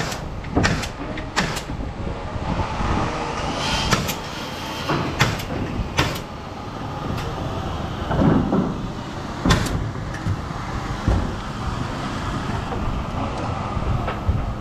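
Pneumatic framing nail gun firing into wooden roof trusses: sharp single shots at irregular intervals, several in the first second and a half and a few more later, over a steady background rumble.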